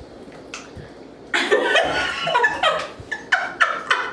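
A woman laughing hard in a string of breathy bursts, starting about a second in.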